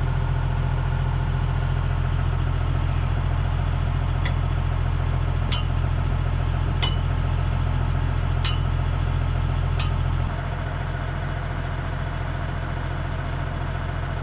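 Diesel engine of a heavy machine idling steadily, with five sharp metallic clinks about a second and a half apart from bolts and tools against the steel swing-bearing ring. The hum dips a little about ten seconds in.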